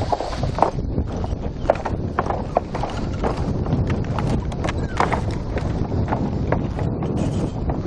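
Footsteps knocking on the wooden plank deck of a long suspension bridge, an irregular run of hollow clops about two or three a second, over a steady low rumble of wind on the microphone.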